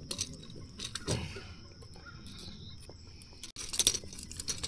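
Scattered light rustles and clicks of handling, over a steady high chirring of insects; about three and a half seconds in there is a sudden break, after which the rustling is louder.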